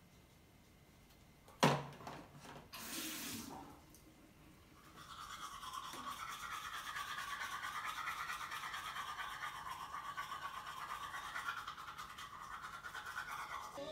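Teeth being brushed with a toothbrush: a steady, fast scrubbing that starts about five seconds in and keeps on. Before it come a sharp click and a brief hiss.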